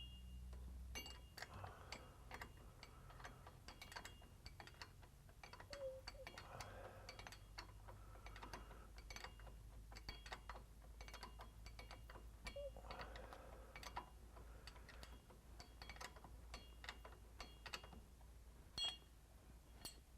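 Faint, irregular clicks and light metallic clinks of tools and steel parts being handled while the handbrake drum is fitted to the transmission flange, with a few soft scraping sounds in between.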